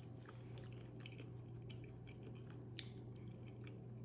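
Close-miked chewing of a chewy piece of food, with small wet clicks and smacks, over a steady low hum.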